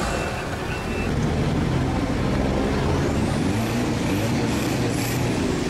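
Off-road 4x4 truck's engine running hard under heavy load as it ploughs through deep water, its note wavering up and down. A few short high beeps sound in the first second.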